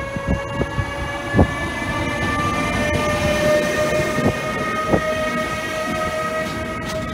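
Siemens Vectron electric locomotive passing with its freight wagons, its traction whine rising slowly in pitch as it gathers speed. A few sharp knocks of wheels over rail joints come in the first seconds, over the rumble of the rolling train.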